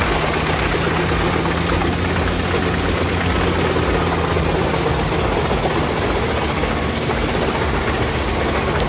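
Jensen wood chipper's engine running under heavy load in a steady, deep drone while it is crammed with untrimmed tree. It is the sound of a machine overloaded and full.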